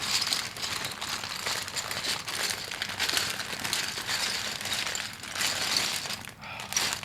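Plastic packaging crinkling and rustling as it is handled, a dense, continuous crackle.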